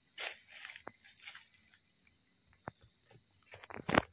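Steady high-pitched insect chirring, holding two even pitches throughout, with a few soft clicks and a louder thump near the end.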